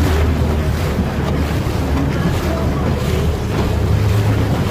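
Motorboat under way: its engine makes a steady low drone, with wind buffeting the microphone and water rushing past the hull.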